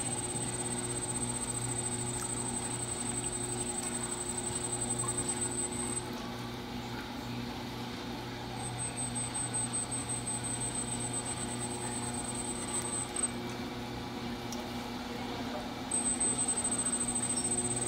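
Electric potter's wheel running at speed, its motor giving a steady hum. A thin high whine sits over it, cutting out about six seconds in and again near the middle before coming back.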